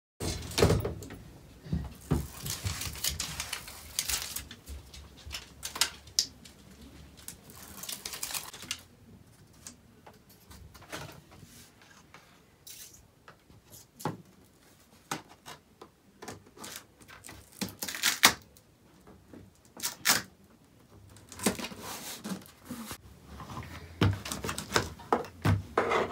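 Irregular clicks, knocks and rustling of thin peel-and-stick wood planks being handled and pressed onto a wall. There are a few longer rasping stretches among the clicks.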